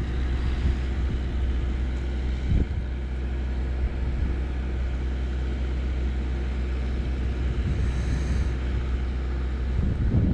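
Wind buffeting the microphone, a steady low rumble. There is a short tap about two and a half seconds in, and a brief high-pitched chirp near the end.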